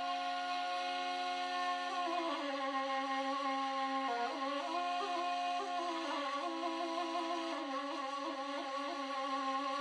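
Folk music on a reed or wind instrument: a melody wandering above a steady, unbroken drone.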